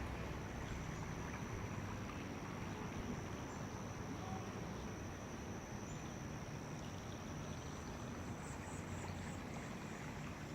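Outdoor garden ambience: a steady, thin, high insect drone over a low rumble, with a few faint high chirps near the end.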